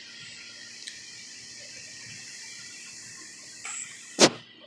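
Steady, high-pitched chorus of night insects, crickets or katydids, shrilling without a break. A single sharp crack or knock cuts through it about four seconds in and is the loudest sound.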